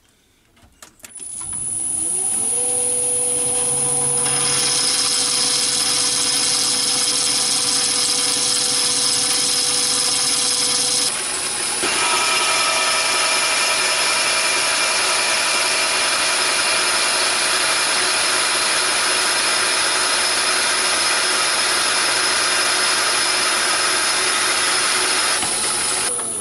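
Myford ML7 lathe switched on and running up to speed, then running steadily with its change-gear train and leadscrew driving the carriage on power feed through the standard tumbler cluster gear. A busier gear noise joins about four seconds in and changes about eleven seconds in. Near the end it is switched off and winds down.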